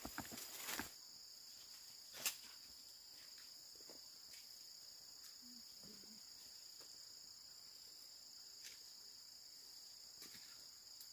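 Insects chirring steadily in two high, even bands, like a cricket chorus. Brief rustling and knocking in the first second and a single sharp click about two seconds in.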